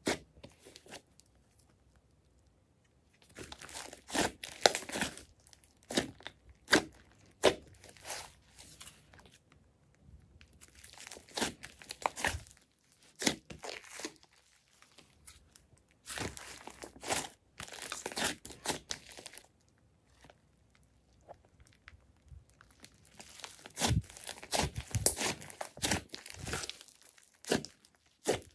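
Hands kneading and pressing a large mass of clay slime, its trapped air pockets crackling and popping in bursts of sharp clicks, with short quiet pauses between the squeezes.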